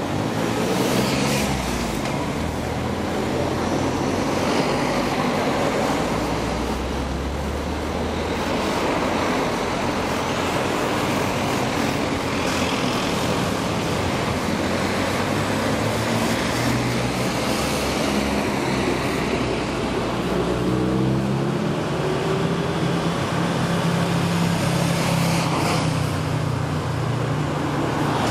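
Road traffic on a city street: cars passing, with a continuous traffic hum and changing engine notes. About two-thirds of the way through, one vehicle's engine note rises as it accelerates away.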